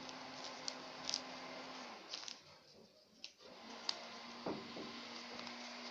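Sheet of paper rustling and crackling in the hands as it is folded and shaped into a paper boat, with scattered short crinkles. A low steady hum runs underneath and drops out for about two seconds midway.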